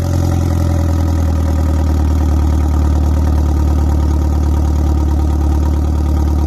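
Citroën 1.6 16V four-cylinder engine idling steadily, moments after firing on its very first start attempt following engine work.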